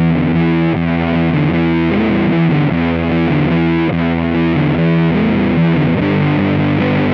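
Electric guitar played through an Electro-Harmonix Big Muff π fuzz pedal, with tone at 12 o'clock and sustain at 3 o'clock. It plays a rhythmic riff of thick, sustained fuzz chords.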